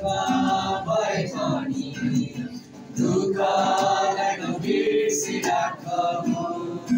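Two teenage boys singing a song together in unison, accompanied by a strummed acoustic guitar.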